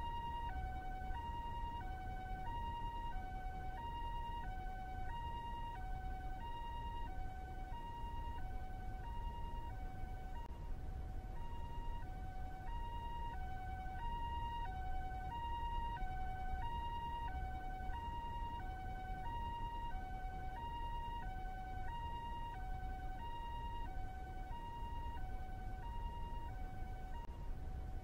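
Two-tone ambulance siren of the Japanese kind, alternating evenly between a high and a low note about once a second. It runs at a steady level over a low, continuous rumble.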